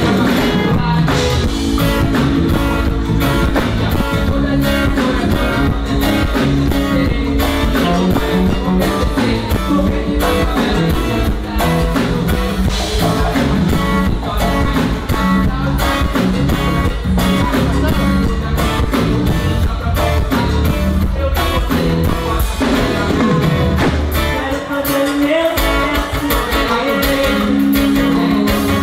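Live band music with singing: vocals over guitar and drums, heard loud and steady.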